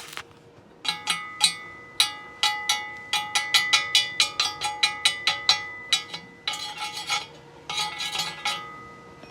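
A steel square tube being struck over and over with a metal hammer, each blow leaving the hollow tube ringing with clear metallic tones. This is typical of a chipping hammer knocking slag off a fresh stick weld. The strikes come a few per second, then bunch into two quick flurries near the end.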